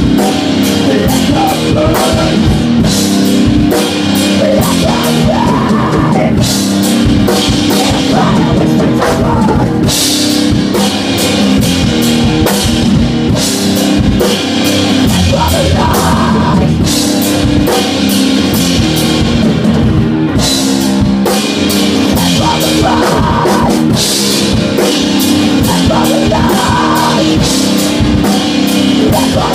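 Live rock band playing: a drum kit beating a steady busy rhythm under a strummed electric guitar, with a vocalist singing into a microphone.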